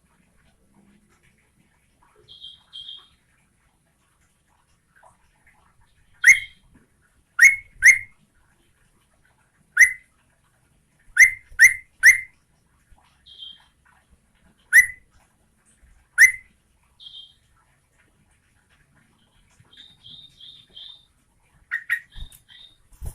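Yellow-vented bulbul (trucukan) calling: about ten short, sharp, upslurred whistled notes, some single and some in quick pairs or threes, with pauses of a second or more between, and softer quick runs of higher chirps in the gaps.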